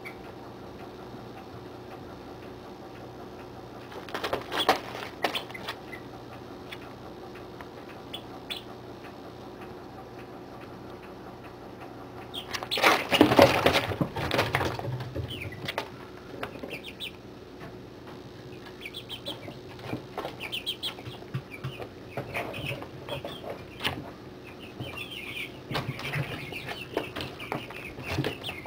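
Forty-day-old chicks in a brooder: two bursts of scuffling and wing flapping, a short one about four seconds in and a louder, longer one around thirteen seconds, then many short high peeps toward the end, over a steady low hum.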